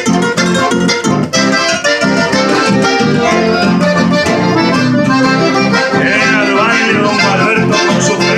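Accordion playing a lively chamamé-style tune over a steady rhythmic accompaniment. About six seconds in, a voice glides up and down briefly over the music.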